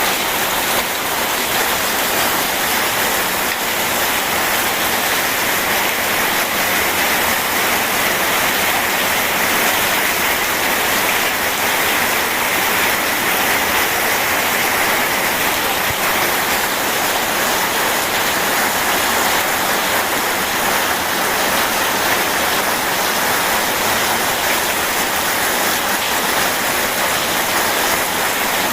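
Steady rain together with rushing river water: an even, unbroken hiss.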